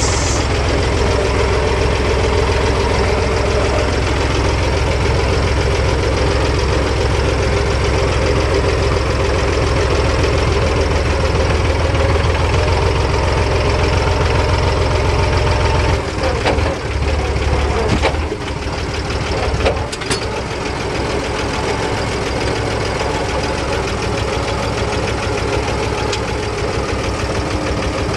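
Fendt Farmer 2 DE vintage tractor's diesel engine running steadily as the tractor is driven, heard from the driver's seat. Between about 16 and 20 seconds in the engine note dips and shifts, with a few sharp clunks, then it runs on steadily a little quieter.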